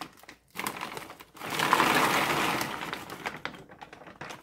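Frozen raw shrimp poured from a plastic bag into a pot of boiling water. The bag crinkles, and the frozen shrimp clatter and splash into the water in a dense rattle, loudest about two seconds in, before it tapers off.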